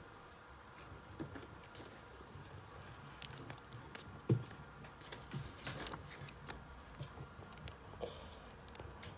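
Handling noise as a spiral-bound sketchbook is picked up and moved about in front of the phone: scattered taps and paper rustles, with a soft thump about four seconds in.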